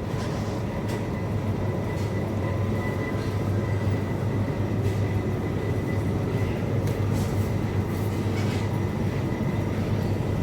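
Steady low hum of a supermarket's background machinery, such as air conditioning and refrigerated coolers, with faint high tones and a few light clicks.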